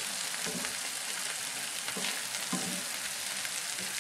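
Lentils in tomato paste sizzling steadily in a cast-iron skillet while a wooden spoon stirs them, with a few short scrapes and knocks of the spoon against the pan.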